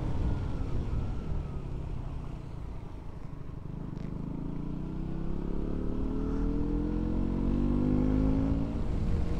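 A KTM 125 Duke's single-cylinder engine eases off for a few seconds. About three seconds in it pulls up steadily through the revs, rising in pitch, then drops sharply near the end at a gear change.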